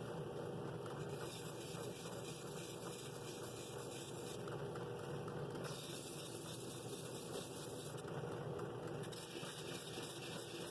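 Drill press running with a sanding drum in the chuck, sandpaper scrubbing against the wood of a bowl held to it: a steady motor hum under a continuous rasping hiss.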